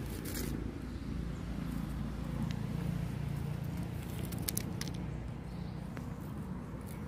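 Steady low outdoor rumble, with a few light clicks and taps about four to five seconds in as a hand handles seeds and stones on gravel.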